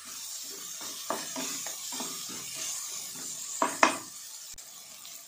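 Wooden spatula stirring onions, tomato and green chillies frying in oil in an aluminium pressure cooker: quick scraping strokes over a steady sizzle. About three and a half seconds in come two sharp knocks of the spatula on the pot, then the stirring stops and only the sizzle goes on.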